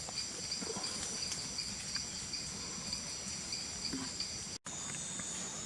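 Crickets and other night insects chirping steadily in a dense, high-pitched pulsing chorus. It breaks off for an instant about four and a half seconds in.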